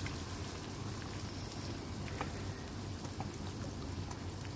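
Tomato and broccoli sauce sizzling in a pan on a gas burner: a steady crackle with a few scattered pops.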